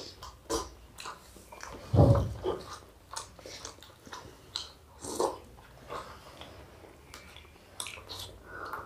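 Close-up eating sounds of people eating rice and curry by hand: wet chewing and lip smacks with scattered small clicks, and one louder low sound about two seconds in.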